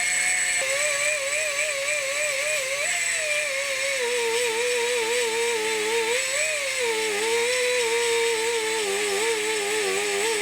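Die grinder grinding the heads off steel roller-chain pins. The motor's whine wavers and sags in pitch as it is pressed into the work, over a steady hiss of grinding.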